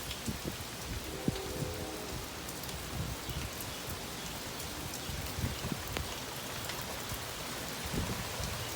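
Steady rain falling in strong gusty wind, an even hiss, with gusts of wind buffeting the microphone in low bumps now and then.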